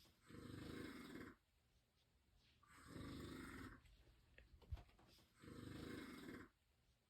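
Snoring in a slow, even rhythm: three snores of about a second each, one every two and a half seconds or so, with quiet breathing between them and a small click between the second and third.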